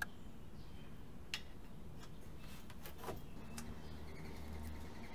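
Light clicks and taps of metal bicycle parts being handled as a stem is fitted onto the fork's steerer tube: three sharp clicks, one at the start, one about a second and a half in and one about three seconds in, over a faint low hum that grows near the end.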